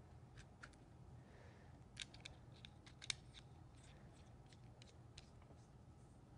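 Faint, scattered small clicks and light taps of a blue plastic cable fitting being pressed and turned together by hand, with two sharper clicks about two and three seconds in.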